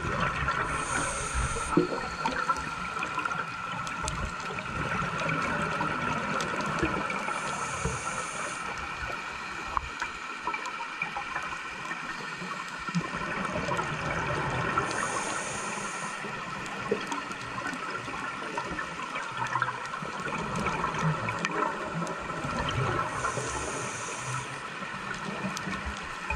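Underwater sound picked up through a diving camera's housing: a scuba diver's regulator breathing, with a short hiss about every seven or eight seconds and gurgling exhaled bubbles in between, over a steady faint whine.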